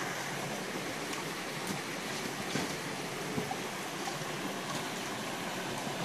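Shallow stream running over rocks: a steady rush of water, with a few faint clicks on top.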